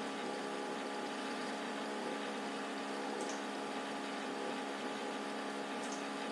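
Steady background hiss with a low electrical hum from the recording setup, no speech; a couple of faint short ticks, about three and six seconds in.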